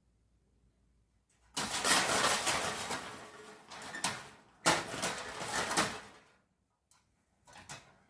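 Wire cage trap rattling and clanking in two loud bouts, the first about a second and a half in and the second near five seconds in, as a trapped cat thrashes inside it.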